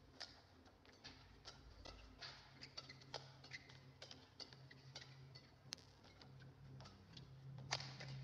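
Faint sharp racket hits on a shuttlecock in a badminton singles rally, irregular, roughly one stroke a second, over a low steady hum.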